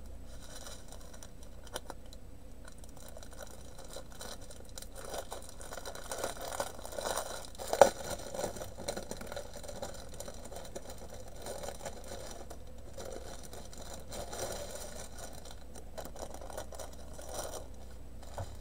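Light rustling and crinkling of plastic packaging being handled, with one sharp click about eight seconds in, over a steady low hum.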